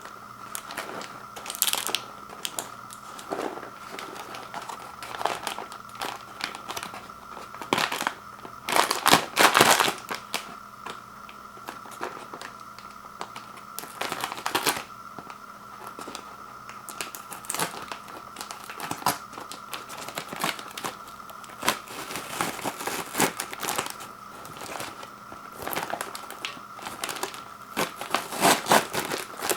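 Microwave popcorn packaging being handled, crinkling and crackling in irregular bursts, loudest about a third of the way in and again near the end, over a faint steady hum.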